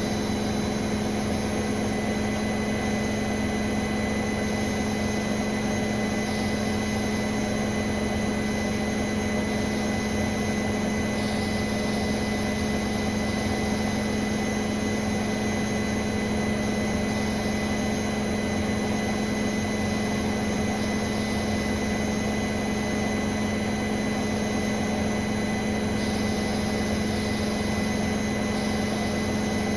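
Bosch Serie 4 WAN28281GB washing machine drum spinning at a steady high speed on its final spin, with a low hum and a steady high-pitched squeal over it. The owner wonders whether the squeal comes from the bearings or from the EcoSilence drive belt; the door seal is clear of the drum.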